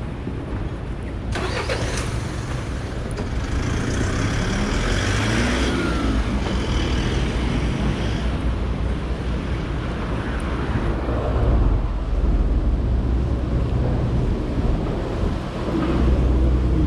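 City street traffic: cars and trucks driving past, engines over a steady low rumble, with one vehicle swelling up and passing close in the first half.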